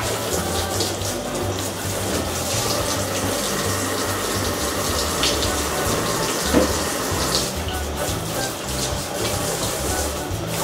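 Kitchen tap running hot water into a sink, filling it for washing up. There is one brief knock about six and a half seconds in.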